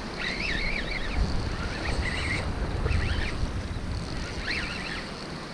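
Wind buffeting the microphone over the steady wash of surf, with a few faint, high wavering chirps in the first half and once more near the end.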